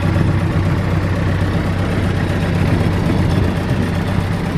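Wooden fishing boat's engine running steadily while underway, a constant low drone over the rush of water and wind.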